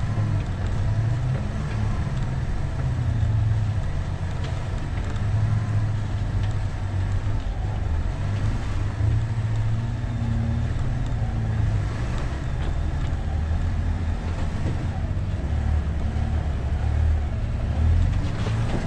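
2013 Jeep Wrangler Unlimited Rubicon's 3.6-litre V6 running at low revs as the Jeep crawls over rock. It makes a steady low drone that rises and falls a little with the throttle.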